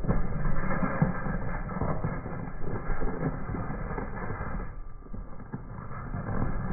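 Watermelon wedge crushed under a slowly rolling car tyre: the rind crackles and the juicy flesh squelches in a run of small irregular cracks over a low rumble, easing off about five seconds in.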